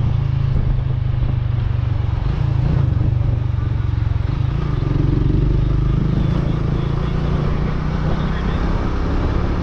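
Suzuki GSX-S150 motorcycle's double-overhead-cam single-cylinder engine running steadily under way, heard from the rider's seat while cruising at an even speed.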